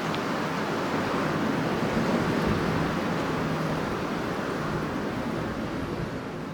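Strong wind blowing in a steady rushing gust, swelling about two seconds in and easing off a little toward the end.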